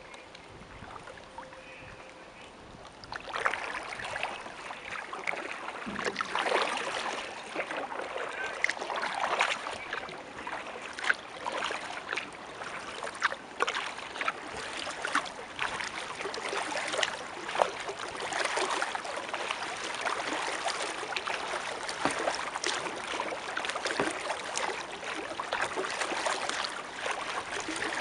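Kayak paddling: the paddle blade dips and splashes, and water trickles and laps along the hull, stroke after stroke. It is quieter for about the first three seconds, then the splashing grows louder and busier.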